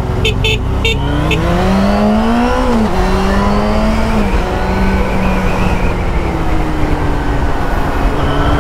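Motorcycle engine heard from the rider's seat over steady wind rush. The revs climb for about two and a half seconds under acceleration, then drop and settle to a steady run. A few short high chirps sound in the first second.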